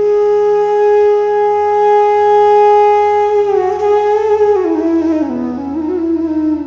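Background music: a wind instrument holds one long note, then slides down in pitch over about two seconds, over a low steady drone.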